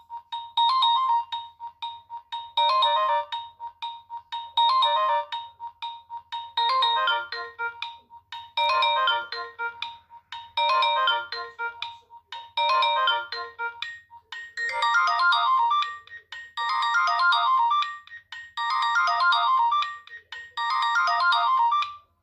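A Nokia 6630 mobile phone playing a ringtone: a short melodic phrase repeated about every two seconds, its tune changing about two-thirds of the way through, until it cuts off near the end.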